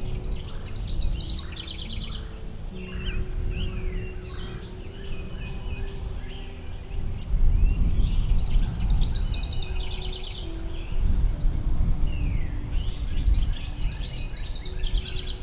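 Several songbirds singing, each phrase a quick run of repeated high notes, one after another. Under them runs a low rumbling noise that swells about seven seconds in and again later.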